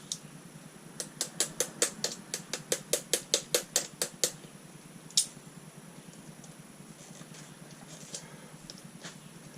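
A quick run of light, sharp clicks, about five a second for some three seconds, then a single louder click a second later, from hand tools working the front-end parts of an RC rock crawler.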